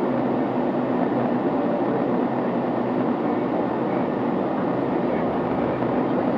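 Airliner cabin noise during a windy descent for landing: a steady roar of engines and rushing air, even in level.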